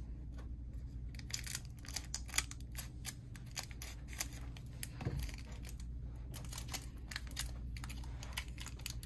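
Scissors snipping open a foil Pokémon trading-card booster pack: a scattered run of sharp snips and crinkles from the blades and the foil wrapper.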